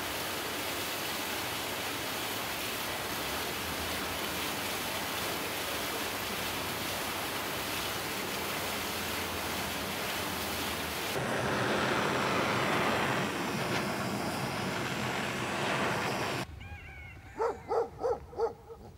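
Steady rushing street noise, which changes character about eleven seconds in. After an abrupt drop near the end, a dog barks four or five times in quick succession.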